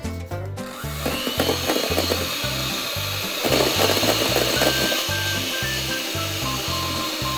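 Electric hand mixer running, its beaters whipping egg whites into meringue in a stainless steel bowl while sugar is added; the motor starts about half a second in and then runs steadily. Background music with a steady bass beat plays throughout.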